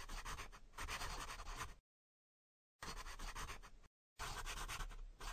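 Pen scratching on paper, a handwriting sound effect, in three bursts that each start and stop abruptly.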